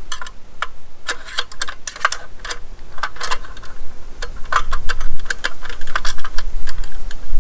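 Thin aluminium tabletop slats of a GSI Outdoors Micro Table clicking and rattling irregularly as a support rod is fed through their holes, catching on the slats as it goes.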